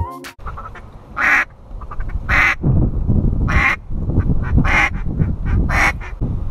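Five short, single duck quacks, spaced about a second apart, over a steady low rumble.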